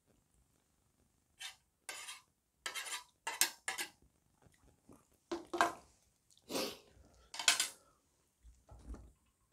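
Metal chopsticks scraping and knocking rice off a plastic lunchbox tray into a metal tray of stew. It makes a run of short, separate scrapes and clinks.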